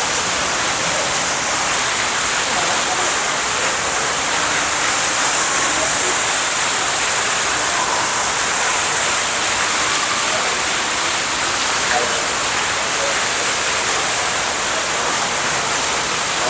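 Steady rushing of falling water, an even hiss with no let-up.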